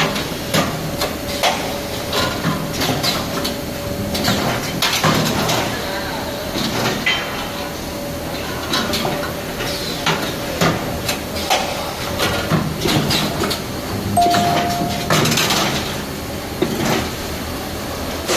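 A CNC flat-bar welding machine and its workshop at work: irregular metal clanks and knocks over a steady hum, with a brief higher tone near the end.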